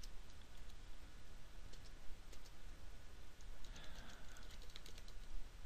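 Computer keyboard being typed on: light, scattered keystroke clicks with short pauses between bursts.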